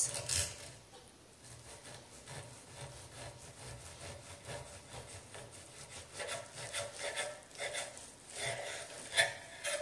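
Steak knife sawing back and forth through a cooked New York strip steak, the blade rubbing on a wooden cutting board. The strokes are faint and repeated, with a louder one near the end.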